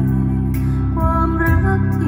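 Music played through a stereo (TWS) pair of Anker Soundcore Motion+ Bluetooth speakers: held bass notes under a melody, with light percussion ticks.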